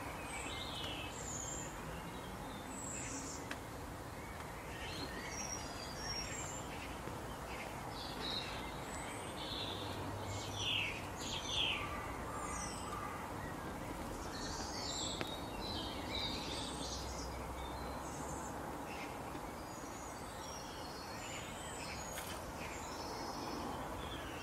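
Small birds chirping and calling in short high notes, scattered throughout over a steady outdoor background hiss. A few louder calls come about eleven seconds in.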